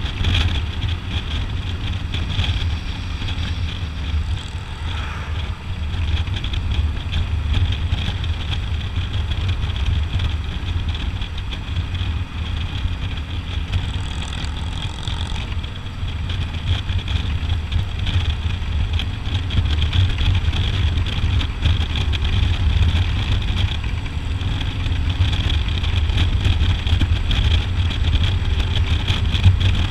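Touring motorcycle riding steadily at road speed: the engine's low note runs under constant wind and road noise.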